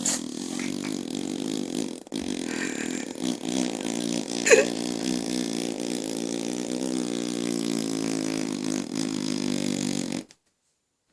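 A man blowing a long, buzzing raspberry with his lips, a mouth-made fart noise, broken briefly about two seconds in. A short sharp squeak stands out about four and a half seconds in. The buzzing cuts off suddenly near the end.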